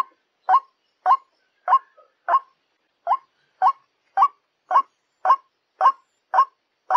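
White-breasted waterhen calling: a string of about a dozen short, harsh call notes, just under two a second, with a brief pause about two and a half seconds in. This is the waterhen call used as a lure to draw the birds in.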